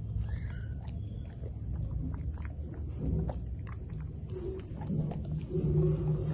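Golden retriever puppy chewing and biting soft papaya chunks off a plate, a run of short mouth clicks and smacks. A low steady drone comes in about halfway and is loudest near the end.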